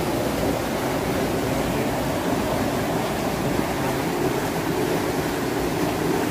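Spring-fed forest stream rushing and splashing, a steady loud flow with no breaks.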